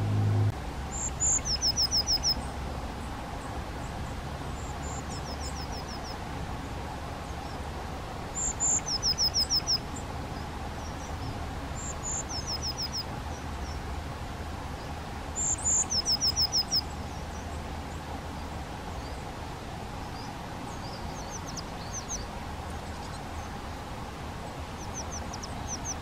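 A blue tit singing its short song: one or two very high thin notes, then a quick trill of five or six notes. It repeats every three to four seconds and is fainter near the end, over a steady low background rumble.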